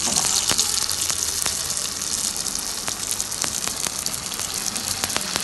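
Hot coconut oil sizzling steadily, with scattered crackles, as vermicelli-coated potato balls are lowered into the pan and begin to deep-fry.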